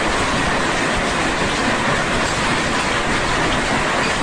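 Heavy hail and rain pelting down in a loud, steady, dense noise that does not let up.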